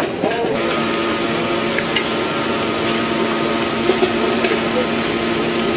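A machine's steady hum, holding a low drone and a higher whine, starting about half a second in, over soft rubbing and a few light clicks as hands mix spiced fish pieces in a metal bowl.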